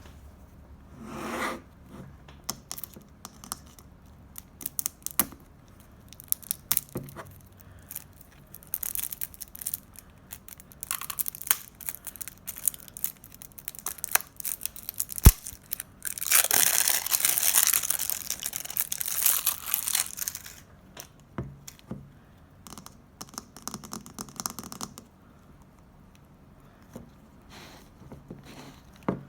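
Slime being squeezed and stretched by hand: irregular small clicks and crackles, one sharp click about halfway through, then a few seconds of dense crackling.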